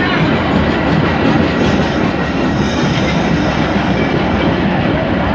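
Metra stainless-steel bi-level passenger cars rolling slowly past as the train comes in to stop. A steady, loud rumble of steel wheels on the rails, with a faint high wheel squeal.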